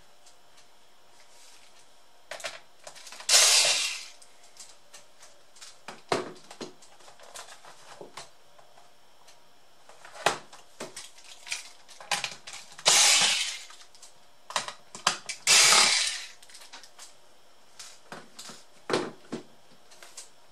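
Hands handling the plastic body of an Asus K53S laptop on a wooden desk: scattered light clicks and knocks of plastic, with three louder scrapes of under a second each, one early and two close together later.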